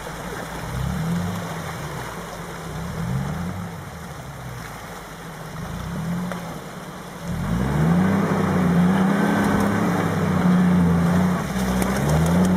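Suzuki Vitara engine revving up and down in repeated bursts under load as the 4x4 crawls through a rocky stream bed, then held at louder, higher revs from about seven seconds in.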